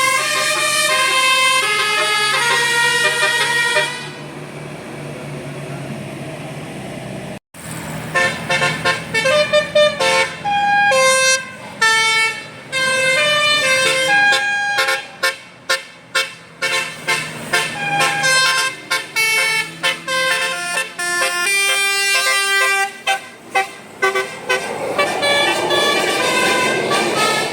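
Bus 'telolet basuri' musical horn playing short melodic tunes in stepped notes, over a steady low hum. There is a sudden break about seven seconds in, and an even rushing noise near the end.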